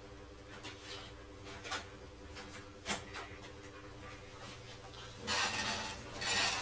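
Room tone with a steady electrical hum and scattered faint clicks, then a louder rustling noise about five seconds in that lasts around a second.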